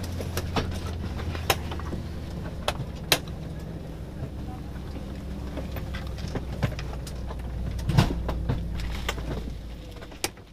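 Steady low hum in a parked Embraer 190 airliner cabin, with scattered clicks and knocks from passengers moving about, one sharper knock about eight seconds in. The sound fades out at the very end.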